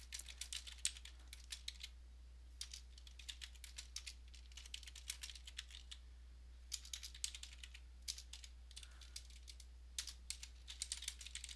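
Typing on a computer keyboard: quick runs of faint key clicks, broken by short pauses between words, over a steady low hum.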